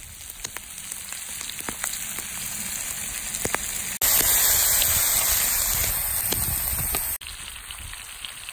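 Steaks sizzling in butter in a cast iron skillet, with scattered sharp pops and crackles. The sizzle is abruptly louder from about four seconds in until about seven seconds, then drops back.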